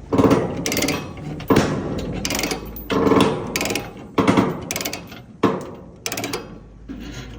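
Chain ratchet binder being cranked to tighten a load chain, its pawl clicking in a run of repeated handle strokes, roughly one every second.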